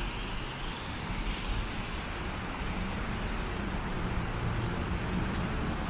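Steady street traffic: a low, even rumble of cars running along a city street, with no single event standing out.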